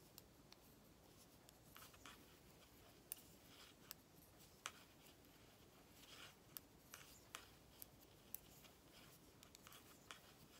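Near silence broken by faint, irregular ticks and light rubbing of knitting needles working mercerized cotton yarn, a stitch at a time.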